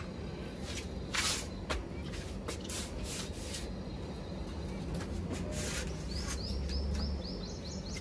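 Small cage birds chirping softly, with a quick run of short, high, falling chirps near the end, over a low steady hum and a few brief rustling noises.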